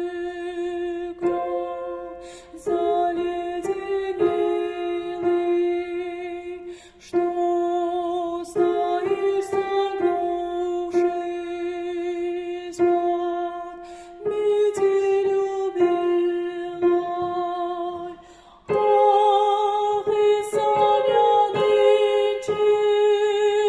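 Music: a slow melody of long held notes with vibrato over a plucked-string accompaniment.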